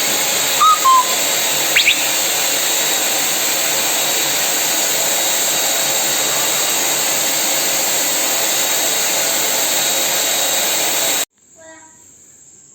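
A power tool running steadily with a loud even hiss, then cutting off abruptly about eleven seconds in.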